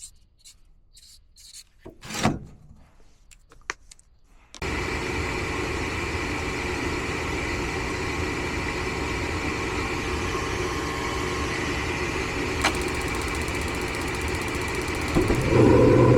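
A few light clicks and handling noises, then about four and a half seconds in an air-conditioning condenser unit starts abruptly and runs steadily, with a louder low hum joining near the end. This is the unit restarting after its weak run capacitor, which read below 10%, has been replaced.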